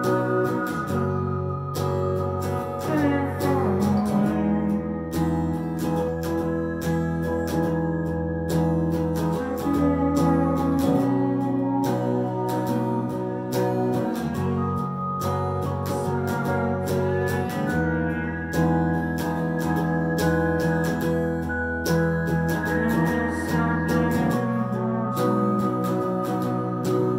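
Live instrumental band playing: an amplified electric guitar picking notes over sustained, organ-like keyboard chords and a held bass line.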